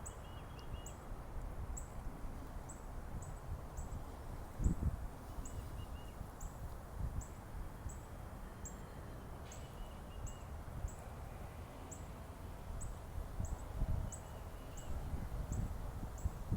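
Outdoor ambience: a high, short chirp repeating evenly about twice a second over a low rumble, with a thump about five seconds in and another near fourteen seconds.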